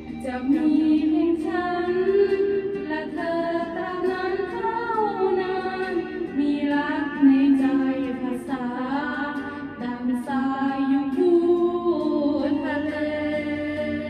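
A woman singing a song in Thai into a handheld microphone, with long held notes that slide between pitches.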